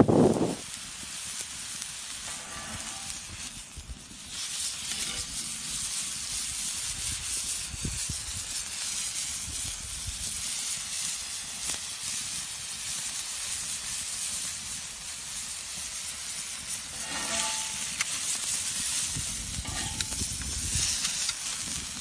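Meat sizzling as it sears on a hot steel plancha griddle heated by a wood fire: a steady hiss, with a couple of faint short tones late on.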